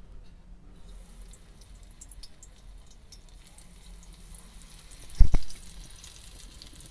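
Spinach and gram-flour bhaji batter sizzling as it deep-fries in hot oil in a pan, with one sharp knock a little after five seconds.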